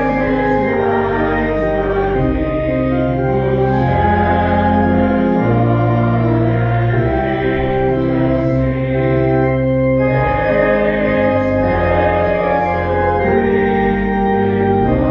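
Allen 600 Series digital church organ playing sustained chords that change every second or so over long-held low pedal bass notes.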